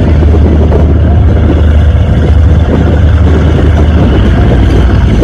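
Offshore V-bottom powerboats' inboard engines running loud and steady as the boats pull away, a deep rumble under the rush of their wakes.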